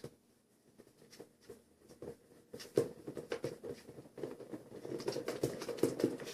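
Spatula stirring slime in a bowl: a run of quick, irregular soft taps and sticky clicks, busiest in the second half.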